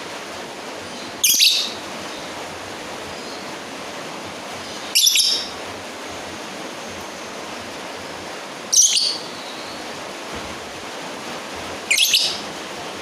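Lovebird giving short, shrill calls, four in all, spaced three to four seconds apart, over a steady hiss. These are the calls a lovebird makes when calling out to a rival bird.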